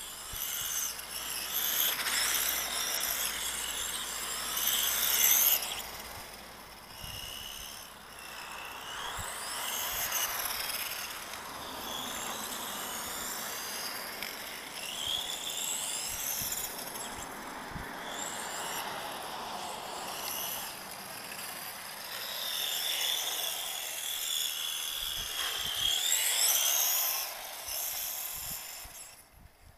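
A 1/10-scale RC touring car's motor and gears whining, the pitch rising and falling again and again as it speeds up and slows down, with tyre noise on asphalt. The sound fades away near the end as the car runs off.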